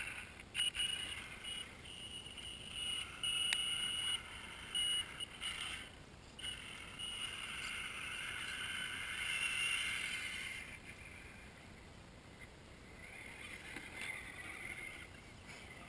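RC rock crawler's electric motor and geared drivetrain whining in stop-start spurts as the throttle is worked on a steep dirt climb, with a few sharp clicks; the whine fades after about ten seconds and returns faintly near the end.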